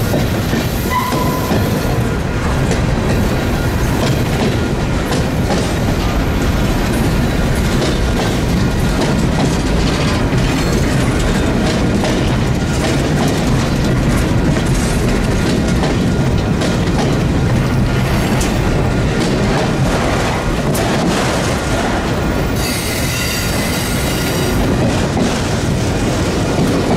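Freight cars of a long mixed freight train rolling past close by: a steady loud rumble and clatter of steel wheels on rail. A high wheel squeal rings out briefly near the end.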